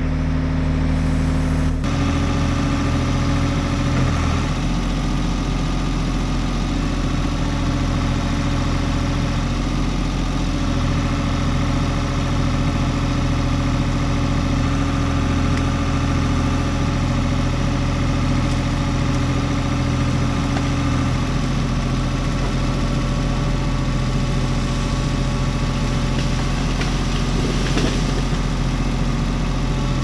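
Ford 555 backhoe's diesel engine running steadily while the extended hoe works, its note shifting slightly a couple of times.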